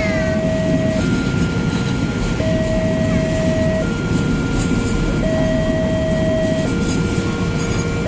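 Railway level-crossing warning alarm sounding a two-tone pattern that swaps pitch about every second and a half, over the low rumble of a passing train hauled by a CC 206 diesel locomotive.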